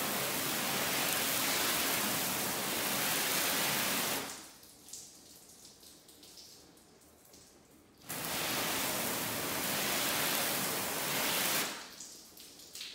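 Water sprayed onto a ceramic-coated car hood, hissing in two bursts of about four seconds each with a quiet gap between, testing how the coating beads and sheets off the water.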